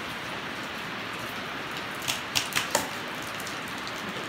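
Four sharp cracks from an airsoft gun in quick succession, about two seconds in, over a steady hiss.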